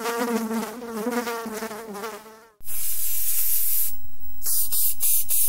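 A buzzing tone that wavers slightly in pitch, lasting about two and a half seconds and cutting off abruptly. It is followed by a loud, steady hiss that has a few brief dropouts.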